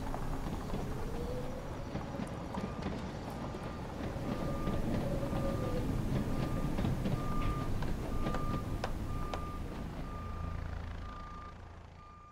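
A heavy vehicle's engine rumbles while its reversing alarm beeps at a steady pitch, about once a second. A few sharp clanks come through midway, and the whole sound fades out near the end.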